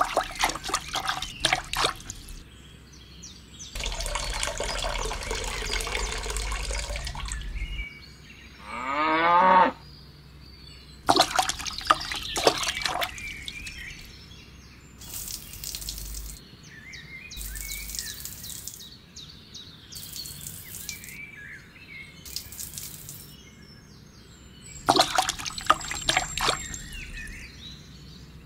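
Water poured from a small plastic cup onto a miniature diorama's sand and seed beds, with several spells of splashing and trickling and clusters of small clicks and taps. A short rising glide in pitch stands out about nine seconds in.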